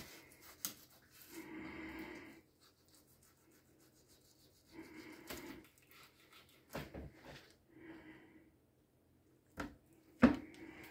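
Fillet knife cutting along a small cod's backbone on a wooden cutting board, heard as a few short strokes of cutting noise. Several sharp knocks of the knife or fish against the board come in between, the loudest near the end.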